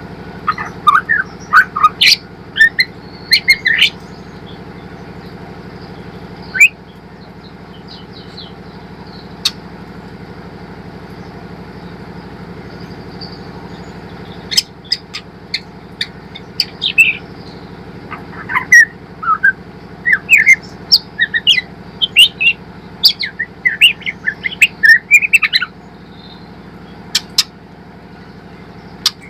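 Juvenile white-rumped shama chirping and twittering in quick bursts of short, sweeping notes. There is a quieter stretch of about ten seconds in the middle, then a long busy run of chirps. A steady low hum runs underneath.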